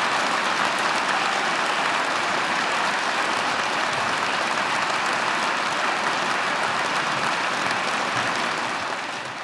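Large concert-hall audience applauding steadily; the applause fades out near the end.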